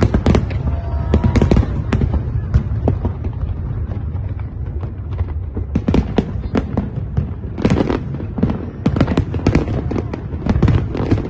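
Aerial fireworks going off in quick succession: many sharp bangs and crackles over a continuous low rumble, densest from about seven and a half to ten seconds in.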